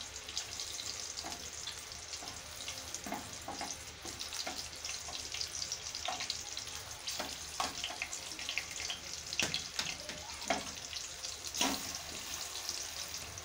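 Cumin seeds and green chillies sizzling and crackling in a little hot oil in a small steel pan, a tadka being tempered. Scattered clicks from a steel ladle knocking and scraping in the pan.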